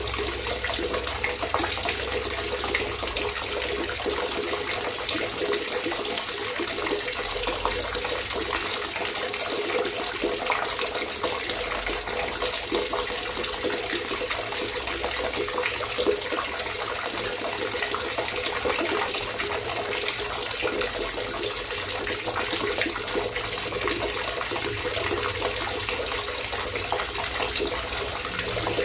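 Water trickling and gurgling steadily, a continuous even babble of small splashes.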